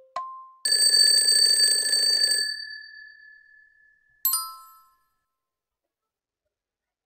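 Quiz countdown-timer sound effects: a last timer beep, then an alarm bell rings for about two seconds as the time runs out and fades away, and about four seconds in a single bright chime sounds.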